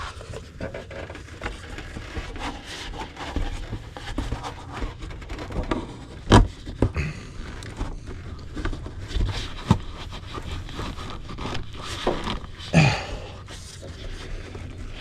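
Air intake tube being worked back into place on an engine by hand: scattered scraping and rubbing with irregular knocks of plastic and rubber parts, the sharpest knock about six seconds in.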